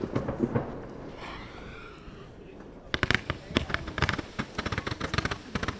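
Lesli 'Böser Chef' 100-shot roman-candle battery (Leuchtkugelverbund) firing. Quiet for the first three seconds, then a rapid, irregular string of sharp pops begins as the stars are launched, several a second.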